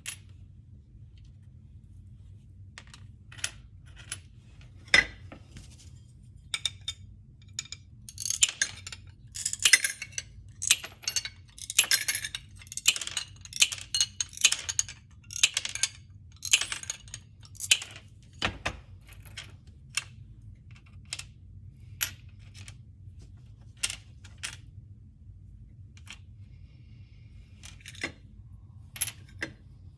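Irregular sharp clicks and clinks of hand cutting with a small tool, with a denser run of quick crackling snips through the middle, over a faint low hum.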